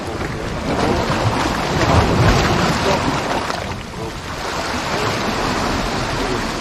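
Wind buffeting the microphone over waves washing against a rocky sea shore: a steady rushing noise that swells about two seconds in and eases a little later.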